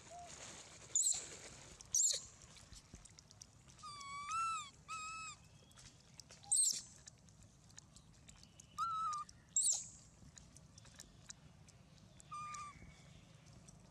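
Young long-tailed macaques calling: short, clear whimpering coos that rise and fall in pitch, two in quick succession about four seconds in and single ones near nine and twelve seconds. A few sharp, high squeaks come in between.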